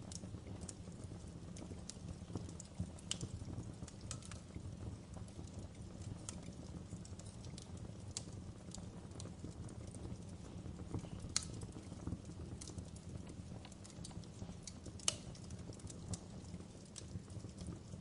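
Wood logs burning in an open fireplace, crackling: a steady low rumble of the fire under scattered sharp pops and snaps, the two loudest pops about eleven and fifteen seconds in.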